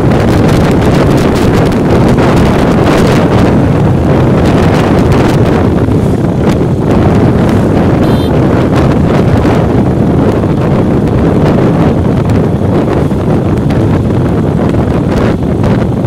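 Loud, steady wind buffeting the microphone of a phone carried on a moving motorcycle, over the motorcycle's running and road noise.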